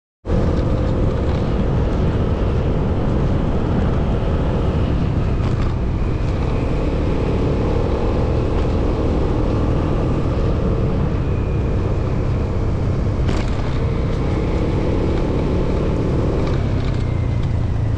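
Motorcycle being ridden at a steady speed: a constant engine hum under a heavy, steady low rumble of road and wind noise.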